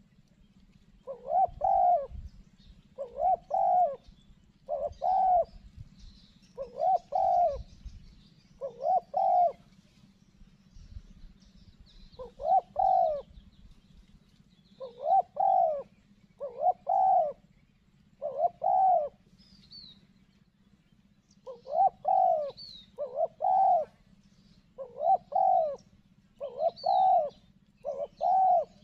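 Spotted dove cooing, a string of short coo phrases repeated every second or so, with brief pauses between runs.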